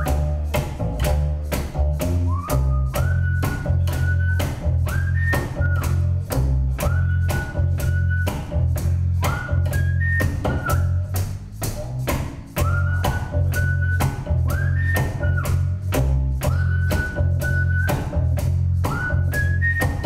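Solo double bass playing a plucked groove with a whistled melody over it, each whistled phrase sliding up into its first note, and a shaker strapped to the player's leg marking an even beat about twice a second.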